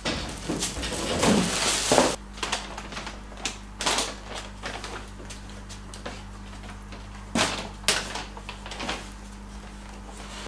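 Plastic grocery bags rustling as they are carried in and set down on the floor, with a few short knocks as the bags and their contents are put down.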